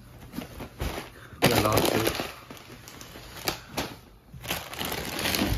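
Plastic snack packets crinkling and rustling against each other and the cardboard box as they are handled and lifted out, in irregular bursts with a few sharp crackles.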